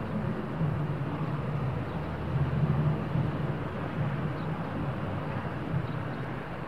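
Steady low drone of the fire ladder truck's engine running to power the ladder, wavering a little in strength, with a faint wash of noise over it.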